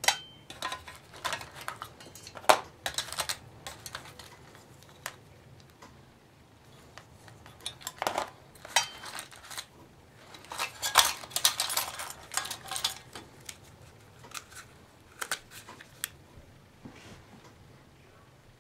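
Small items, keys among them, clicking and clattering as they are lifted out of a small ammo-style storage box and handled. Irregular short clicks and rattles, with a quieter stretch before a busier burst of clatter in the middle.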